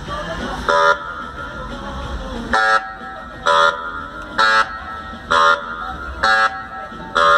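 A horn sounding in seven short, loud blasts, most of them about a second apart.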